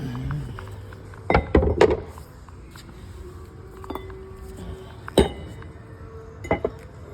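Calibration test weights clinking and knocking as they are set down and stacked on a platform scale to load it to 100 kg: a pair of sharp knocks about a second and a half in, another around five seconds, and a pair near the end, some leaving a brief metallic ring.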